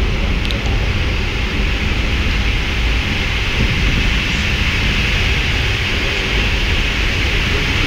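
Steady cockpit noise of a Boeing 777 taxiing: an even hiss over a low rumble, unchanging throughout.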